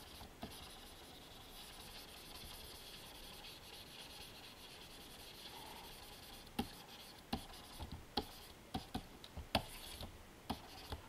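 Pen stylus scratching and rubbing across the surface of a Wacom Cintiq 27 QHD Touch pen display as it paints in strokes, faint. From about six and a half seconds in, a run of sharp, separate clicks.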